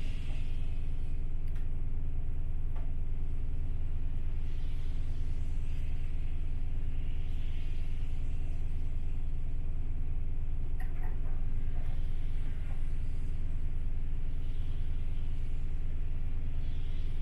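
City bus engine idling steadily, heard from inside the cabin while the bus waits in traffic, with a few faint clicks and rattles.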